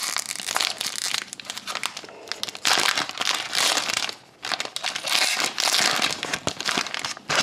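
Wrapper of a sealed hockey card pack being torn open and crinkled, in several crackly bursts with brief pauses between them.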